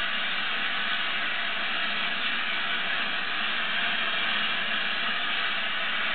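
Steady hiss of steam from a standing Gresley A4 Pacific steam locomotive, even and unbroken.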